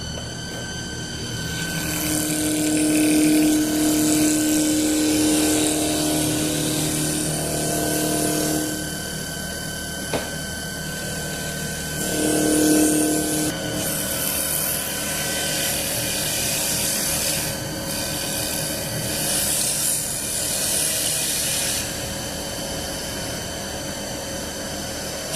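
CNC wood lathe running its first cutting pass at a low feed rate: a steady high whine from the machine, with spells of louder rasping as the tool cuts into the wood, the longest in the first third and a shorter one about halfway.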